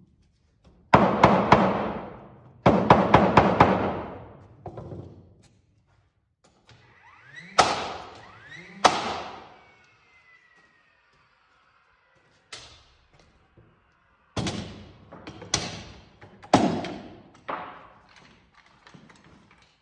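Loud thuds and knocks of work on a wooden floor truss: two heavy rattling bursts in the first few seconds, a pair of blows with a falling ring near the middle, then single knocks and a quick run of sharp blows in the last third, each echoing off the steel arch walls.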